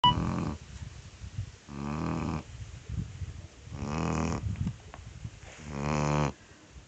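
Chocolate Labrador puppy snoring in its sleep: four drawn-out, pitched, humming snores about every two seconds, with softer breathing between them. A short beep sounds right at the very start.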